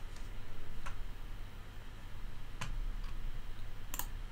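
A few sharp computer mouse clicks, about three spread out with a second or more between them, over a low steady hum.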